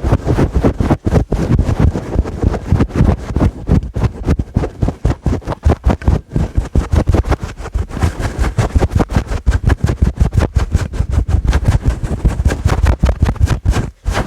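Fingers scratching a fluffy furry microphone cover in fast, rough strokes, close on the mic, loud and bassy with no pause.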